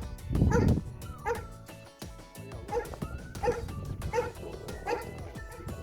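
Farm dogs barking and yipping in a string of short, sharp barks, the loudest about half a second in, with background music under them.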